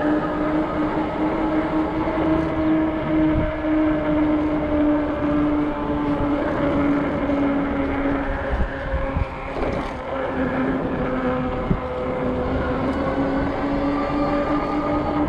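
Ecotric 48V fat-tire e-bike riding on pavement: a steady pitched hum from the hub motor and fat tyres that drops slightly in pitch after the middle and climbs again near the end, over a rushing noise.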